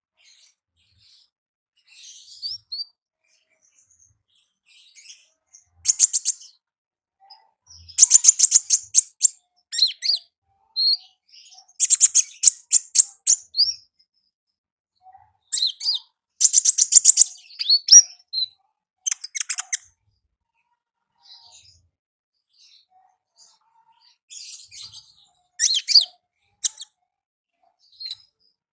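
Konin ninja songbird singing: high, rapid chattering trills of about a second each, repeated in bursts with short pauses between.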